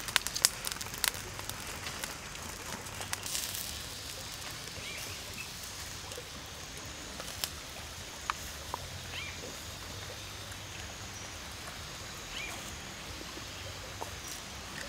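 Forest ambience: short bird chirps every second or two over a steady background hiss, with a few sharp clicks in the first second or so.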